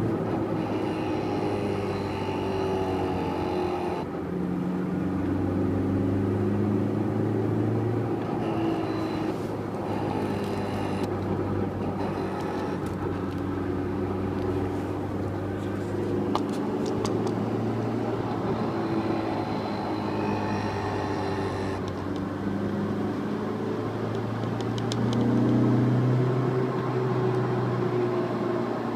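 Honda S2000's four-cylinder engine and drivetrain heard while cruising in fourth gear with the throttle lifted, the engine note drifting gently up and down; the owner suspects the noise comes from a bad clutch.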